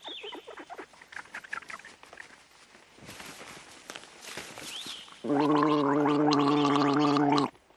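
A man gargling a mouthful of water with his head tipped back: one loud, steady gurgling tone of about two seconds that starts past the middle and cuts off sharply.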